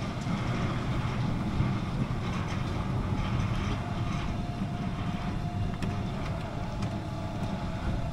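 Small family roller coaster train of caterpillar-style cars running along its steel track past the camera, a steady low rumble with a faint steady whine and a few light clicks.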